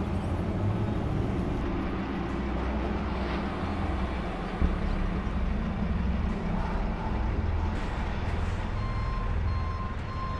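A truck's engine running with a steady low rumble, and its reversing alarm starting to beep near the end at about two beeps a second. There is a single short knock about halfway through.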